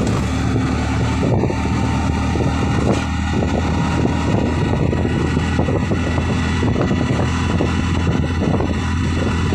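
Steady engine and road noise of a vehicle travelling at speed, with wind buffeting the microphone.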